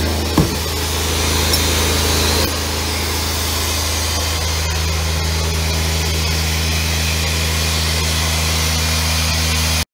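Diesel engine of an Atlas Copco XAS37 portable air compressor running steadily. There is a single knock about half a second in as a hand pushes on the yellow canopy panel.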